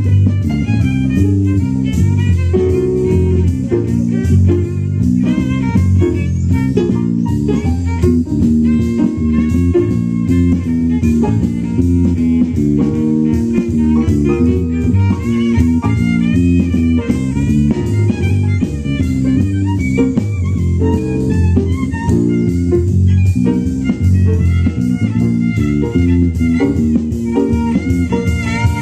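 Small jazz combo of violin, piano, bass and drum kit playing a swinging blues.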